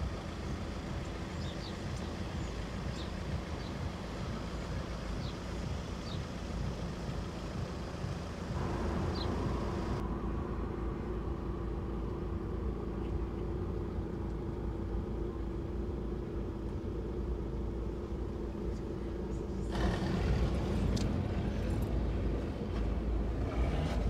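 Low, steady vehicle rumble of engine and road noise. A steady hum runs through the middle stretch, and the sound changes abruptly about ten and twenty seconds in.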